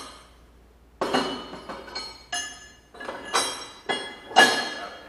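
A series of sharp metal-on-metal taps, about six or seven, each ringing briefly, the last and loudest near the end. A steel pin is tapping a threaded rubber cap into the retainer-pin bore of a HydroRam HK330 hydraulic hammer, because the cap won't go in by hand.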